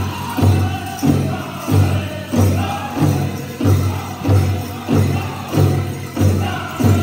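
Powwow drum group beating the big drum in a steady beat, about one and a half strokes a second, with singing over it and the bells on the dancers' outfits jingling.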